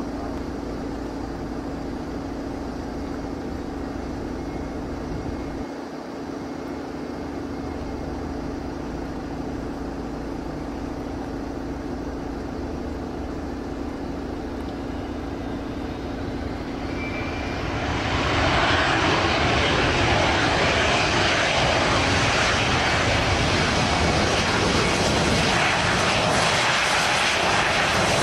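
Bombardier Challenger 350 business jet's twin turbofan engines: a steady, moderate engine hum with a held tone, then about eighteen seconds in the engine noise rises quickly into a loud, sustained jet roar.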